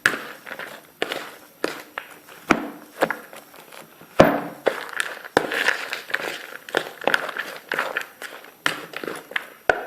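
A spoon knocking and scraping against a bowl as chopped vegetables and grated cheese are stirred together, with sharp knocks coming irregularly, about one or two a second.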